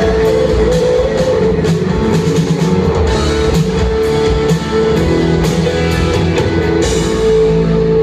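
Live rock band, drum kit and distorted electric guitars through Marshall stacks, playing loudly with repeated cymbal crashes. About seven seconds in the drums stop and a steady amplified guitar tone is left ringing.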